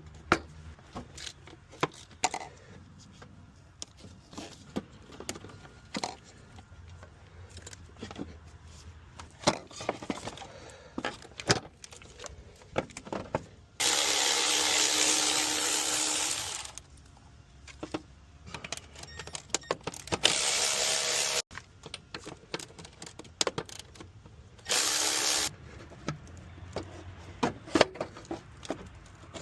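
Hand tools clicking and clinking against metal, with three bursts of a power tool such as an impact driver or electric ratchet. The first burst lasts about three seconds and the other two about a second each.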